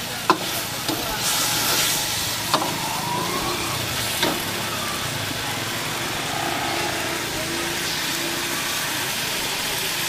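Chicken masala sizzling steadily in a black wok, with a steel ladle stirring and striking the pan in three sharp clanks during the first half.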